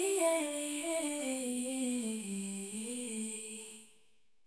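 Background music: a wordless hummed vocal melody moving slowly downward in steps, ending about four seconds in.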